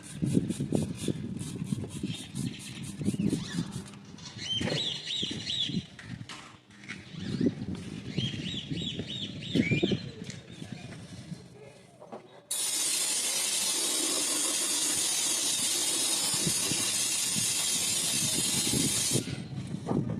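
Irregular clattering and short squeaks of hand work in an engine bay, then a steady spray hiss from about halfway that lasts some seven seconds and stops abruptly, as degreaser is sprayed onto the area where the power steering pump sat.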